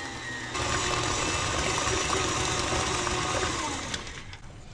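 Electric mixer running, beating softened cream cheese; it gets louder about half a second in and winds down near the end.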